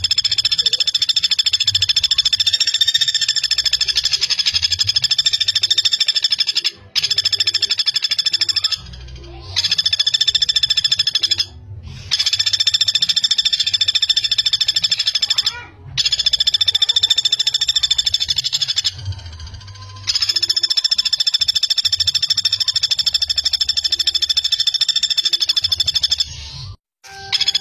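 Common flameback woodpecker (pelatuk bawang) calling in long, rapid rattling trills: six runs of a few seconds each, separated by brief pauses.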